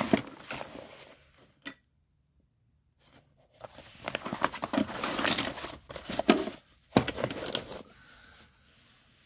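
Tools being handled in a steel toolbox drawer: a quick run of clicks, clinks and rustles, with one sharp knock about seven seconds in. A second of dead silence about two seconds in marks an edit.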